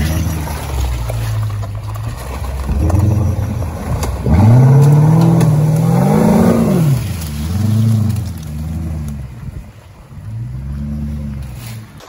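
Off-road 4x4's engine pulling under load, running steadily and then revving up hard about four seconds in. It holds high for a couple of seconds, drops, and surges up and down three more times.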